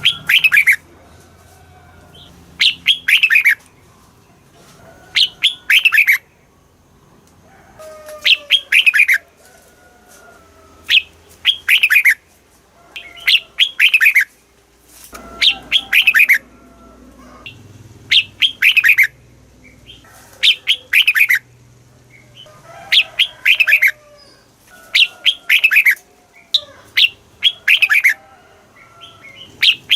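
Red-whiskered bulbul singing: short, loud phrases of quick downward-sweeping whistled notes, repeated roughly every two seconds. This is the bulbul's territorial song, played to rouse caged bulbuls.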